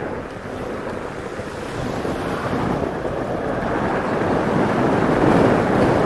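Wind rushing over the microphone, growing steadily louder, as the E-Mobo DuoTork electric kick scooter picks up speed.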